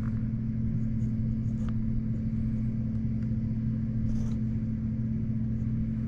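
Central air conditioning running: air blowing steadily out of a supply register close to the microphone, with a steady low hum.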